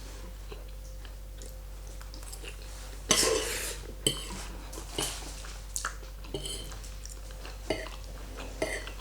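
A fork clinking and scraping on a plate several times while spaghetti carbonara is eaten, with chewing close to the microphone.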